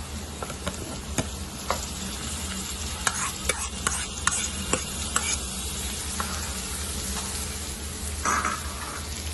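Chopped vegetables with freshly added yellow bell pepper sizzling in butter in a pan as a spatula stirs them, with scattered clicks and scrapes of the spatula against the pan.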